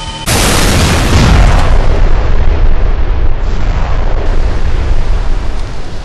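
Explosion sound effect: a sudden loud blast about a third of a second in, followed by a long, heavy rumble that drops off near the end.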